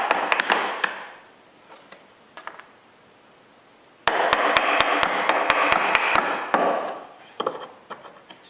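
Chisel cutting through plywood with rapid sharp strikes and crackling wood, in two bursts; the second begins about four seconds in, after a short quiet gap. Scattered lighter taps follow it.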